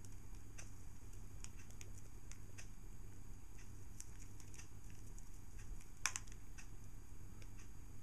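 Light, scattered clicks and taps from budgies in their wire cage, with one sharper click about six seconds in, over a low steady hum.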